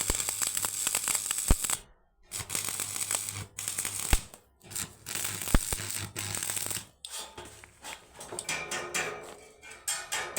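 Electric arc welding: the arc crackles and hisses in runs of a couple of seconds, with a low hum underneath. It breaks off briefly about two seconds in, again after about four and a half and seven seconds, and is patchier near the end.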